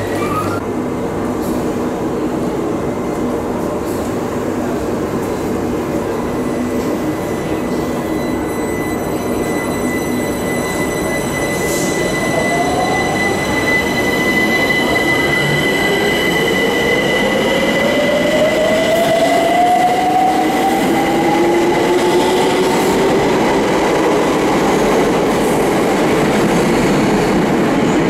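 London Overground Class 378 electric multiple unit pulling out of an underground platform. Its traction motors give a whine that rises in pitch as it gathers speed, over a steady high tone and a wheel-and-tunnel rumble that grows louder.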